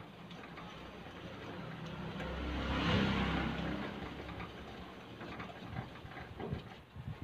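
A motor vehicle passing by, its engine and road noise swelling to a peak about three seconds in and then fading away. A few light knocks near the end.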